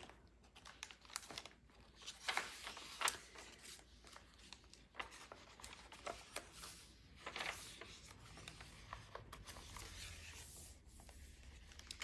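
Heavy paper pages of a handmade journal being turned and smoothed by hand: soft, intermittent paper rustling and flapping, with a few sharper page flips about two, three and seven seconds in.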